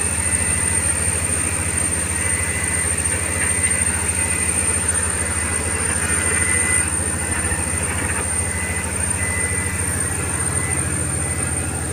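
A fishing boat's inboard engine running steadily under way, heard inside the wheelhouse as a constant low drone with a fine rapid pulse, and a thin high whine above it.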